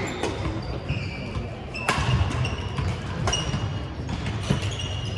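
Badminton rackets striking a shuttlecock in a doubles rally, a series of sharp cracks with a loud one about two seconds in, mixed with court shoes squeaking in short high chirps on a hardwood gym floor. Voices and play from neighbouring courts echo in the hall.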